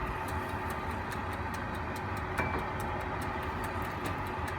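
Electric oven running with a steady hum while a timer ticks evenly, about four ticks a second.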